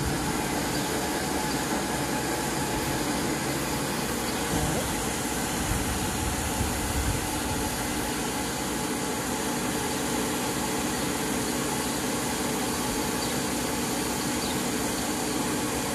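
Street-cleaning spray equipment hosing disinfectant onto the pavement: a steady machine noise with a hiss.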